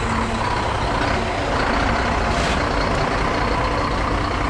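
Scania P380 dump truck's diesel engine running steadily, with a short hiss of air about two and a half seconds in.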